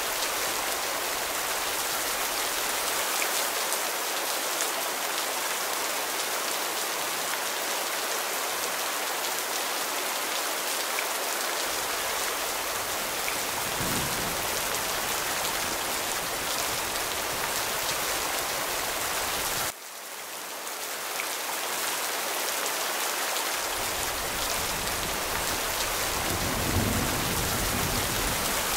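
Steady rain falling, a dense even hiss, with low thunder rumbling about halfway through and again near the end. About two-thirds of the way in, the rain cuts out abruptly and fades back in over a few seconds.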